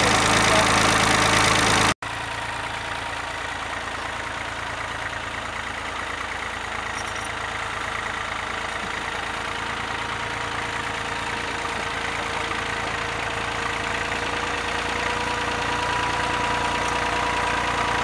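Volvo BM 400 tractor engine running steadily at an even pitch. The sound breaks off abruptly about two seconds in, resumes quieter, and then slowly grows louder.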